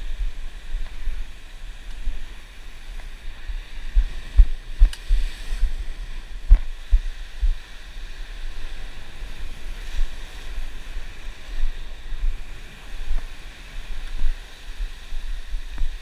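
Ocean surf surging and washing over lava rocks, with wind buffeting the microphone in low thumps, strongest between about four and eight seconds in.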